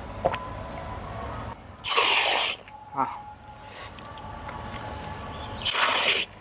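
Carbonated cola spurting from the tap of an upside-down-bottle soda dispenser into a glass mug, in two loud hissing spurts about four seconds apart. The cola is pushed out by the fizz pressure inside the bottle, so it comes out foaming.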